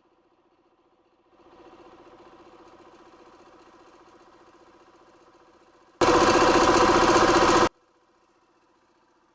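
Mercedes OM611 2.2 CDI four-cylinder diesel idling steadily, faint at first and a little louder after about a second. From about six seconds in it is much louder for under two seconds, starting and stopping abruptly.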